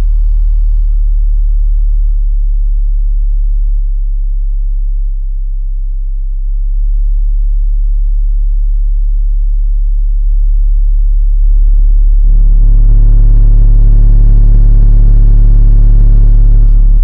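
Sundown SA-8 8-inch subwoofer in a 6th-order bandpass box, playing a steady deep test tone at about 36–37 Hz, heard from inside the car cabin. About twelve seconds in it grows louder and harsher. It is an SPL test that reaches about 133 dB in the cabin.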